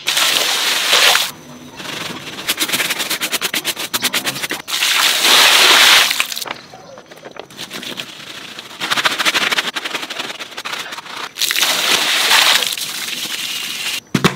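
Water pouring and splashing onto a sodden, dirty plush toy in several long bursts, between stretches of fast rhythmic hand-scrubbing of the wet, soapy fabric against a tile floor.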